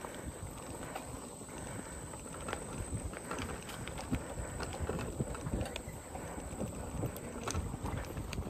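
Bicycle riding along a dirt trail and over a wooden footbridge: tyres crunching and a run of rattling clatters over a steady low rumble.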